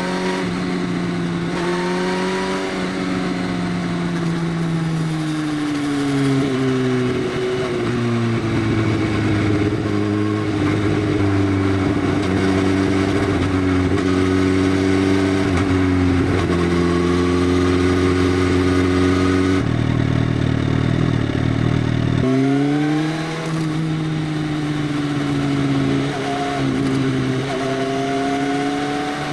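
Motorcycle with an aftermarket Arrow full exhaust system, its dB killer removed, running on the road with the engine note rising and falling slowly through the gears. Around two-thirds of the way in, a deeper, heavier note cuts in for about two seconds, then the higher note returns.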